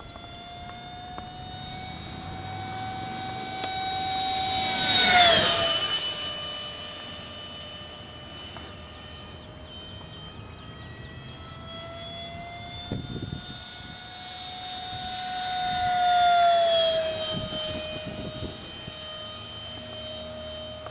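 Electric ducted fan of a radio-controlled F-5E jet model, a Wicked 4800 motor with the stock fan on a 3S LiPo, whining steadily in flight. The model makes two passes: the whine grows louder and then drops in pitch as it goes by, about five seconds in and again about sixteen seconds in.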